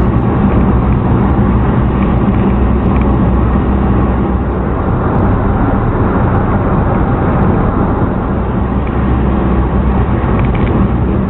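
Car engine and tyre noise heard from inside the cabin while driving: a steady, loud low drone with road hiss over it.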